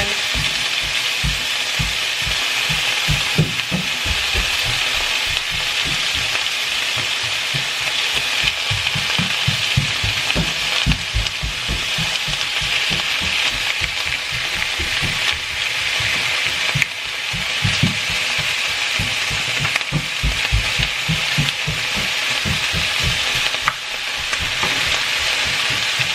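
Pork sizzling as it fries in a pan: a steady hiss with frequent irregular low knocks running through it.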